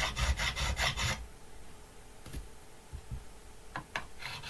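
Crowning file scraping back and forth across a stainless steel guitar fret in rapid, even strokes. It stops about a second in, leaving a quiet pause with a few light clicks, and the strokes start again near the end.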